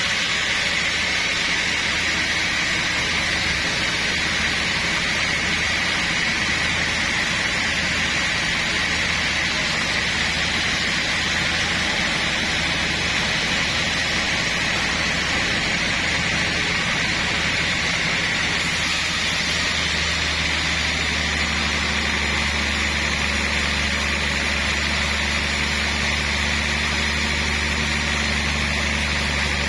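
Sawmill machinery running steadily: an engine drone under a steady high whine. About two-thirds of the way in the low drone settles into a steadier, stronger hum.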